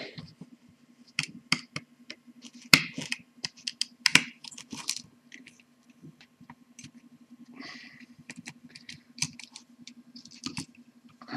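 Irregular sharp clicks, small knocks and scrapes of hard plastic parts as a screwdriver and fingers work a slow juicer's plastic gearbox housing apart to free its big gear.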